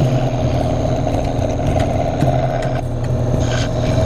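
1980 Powermatic Model 95 scroll saw running steadily, its blade cutting through a wooden board along a curved line.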